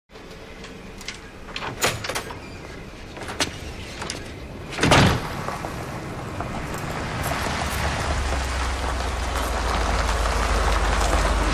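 A few light clicks and a loud thump about five seconds in, then a car approaching, its engine rumble and tyre noise growing steadily louder toward the end.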